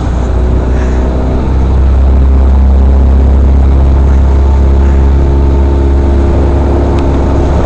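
15 hp Mercury outboard motor running steadily as the boat moves along, getting louder about a second and a half in and then holding steady.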